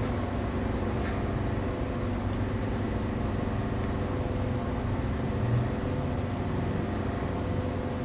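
Steady low machine hum with a few fixed tones and a slight swell about five and a half seconds in.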